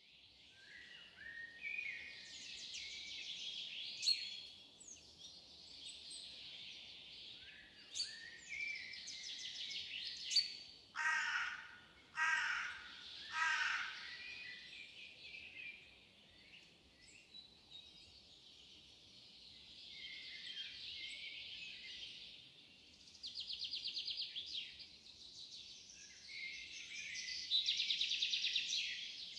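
Outdoor birdsong of several small birds chirping and trilling, with three harsh caws about eleven to fourteen seconds in and rapid buzzy trills twice near the end.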